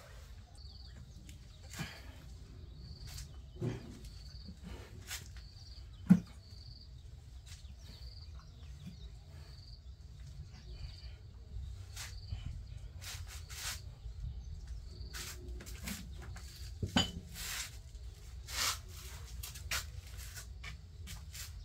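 Scattered clicks and knocks of a plate-loaded dumbbell during one-arm rows, the loudest knock about six seconds in and another near 17 seconds, over a low steady rumble. A faint high chirp repeats about twice a second through the first half.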